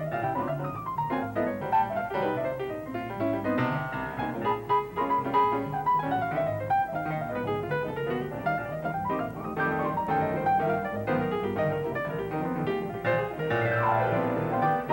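Jazz piano played live on a grand piano: fast, dense runs of notes, with a double bass playing low notes underneath.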